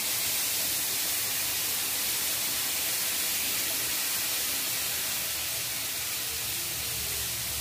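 Hot sugar syrup poured into a wok of semolina roasted in ghee, hissing and sizzling steadily as it hits the hot pan. The hiss eases slightly near the end.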